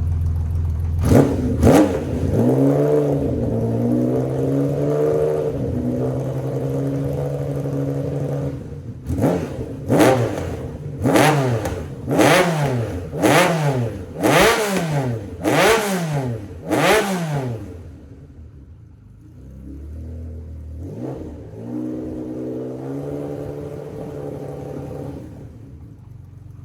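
Honda CBX1000's air-cooled inline-six engine revved on the stand: two quick blips, then held at raised revs for several seconds. It follows with a run of about eight sharp throttle blips, roughly one a second, each falling back, then settles to a quieter idle with one more small blip.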